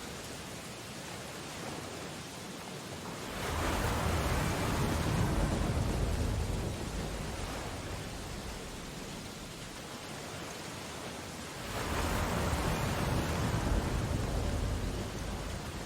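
Steady rain on window glass with a stormy sea outside, the rush swelling twice into a louder surge about three seconds and twelve seconds in, each lasting about four seconds.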